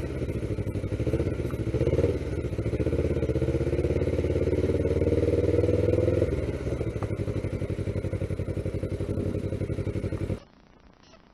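Kawasaki ER-5's parallel-twin engine running at low speed, rising briefly about two seconds in, then dropping to a lower steady note about six seconds in as the bike slows and pulls up. The engine sound cuts off suddenly near the end, leaving only faint background.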